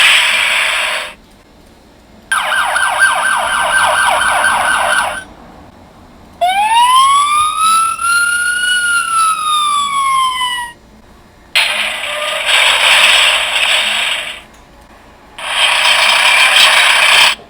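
Recorded vehicle sound effects from a children's push-button sound book, played one after another with short gaps and each cutting off abruptly. There are five clips. Three are noisy, one buzzes in rapid pulses, and the middle one is a siren that rises once and then falls.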